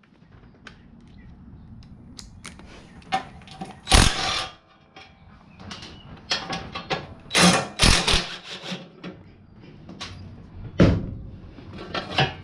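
Hand tools working bolts loose on a mini bike's chain cover: scattered metallic clicks and clanks, with three louder knocks.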